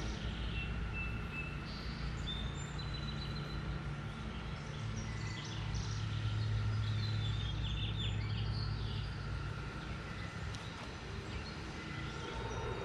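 Low steady hum of a Sunsetter retractable awning's electric motor running as the awning extends, growing louder mid-way, with birds chirping over it.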